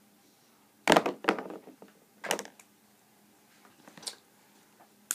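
A few sharp knocks and taps. Two come close together about a second in, another near the middle and a lighter one later. The first is the loudest.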